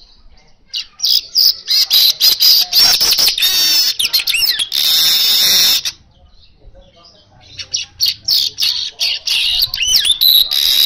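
Male streaked weaver (manyar) singing in two bouts, the first starting about a second in and the second near the eight-second mark. Each bout is a fast run of short, squeaky chattering notes and glides that ends in a long, high, hissing buzz.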